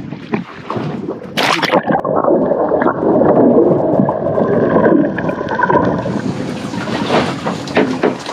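Water sloshing and gurgling, with one short sharp burst of splash-like noise about a second and a half in.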